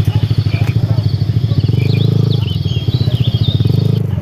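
Yamaha NMAX 155 scooter engine running under way, a steady rapid low throbbing with wind noise.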